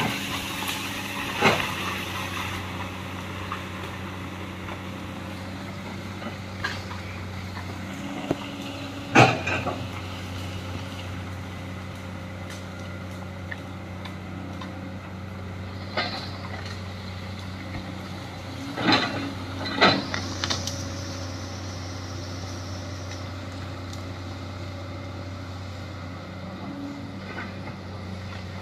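Komatsu hydraulic excavator's diesel engine running steadily as it digs, with about five sharp clanks from the bucket and boom spread through, the loudest near the middle and two close together later on.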